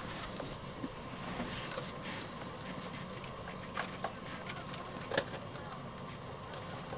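Light handling sounds of a mesh bug screen being pressed onto adhesive Velcro strips around a door frame, with a few short clicks about four and five seconds in, over a steady background hum.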